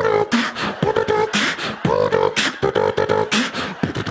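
A man beatboxing into a handheld microphone: rhythmic mouth-percussion hits, about three or four a second, mixed with held, pitched vocal tones.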